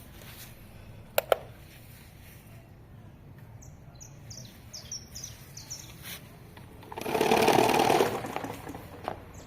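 Small birds chirping in short high notes, with two sharp clicks about a second in and a loud buzzing rattle lasting about a second near the end.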